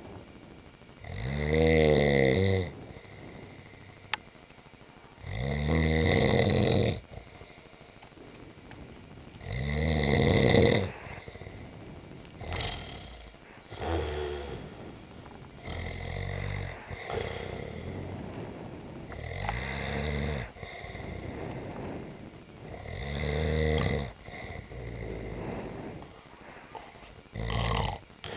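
A man snoring loudly in repeated rattling breaths, about one every four seconds, some heavier than others.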